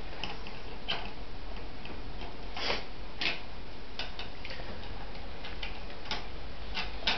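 Scattered small clicks and taps of computer hardware being handled and fitted onto a PC motherboard, at an irregular pace, with a louder pair of clicks about two and a half and three seconds in.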